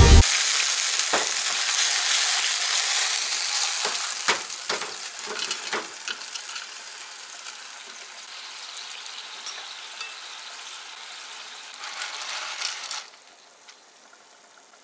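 Clams and white wine sizzling in a hot frying pan. The sizzle is loudest at first and fades steadily as it settles, with a few sharp clinks of shells and pan in the first seconds, then dies down to a faint hiss near the end.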